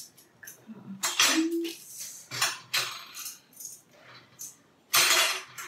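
Metal spoons clinking and rattling against each other as a handful is sorted through and set down, in several short bursts, the loudest near the end.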